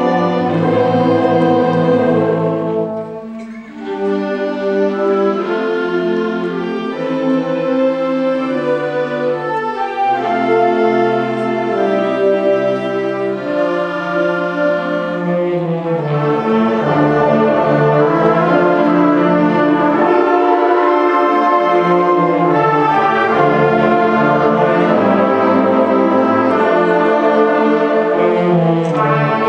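Concert band playing: woodwinds and brass in sustained chords. The music thins out briefly about three seconds in, then builds and runs fuller and louder from about sixteen seconds on.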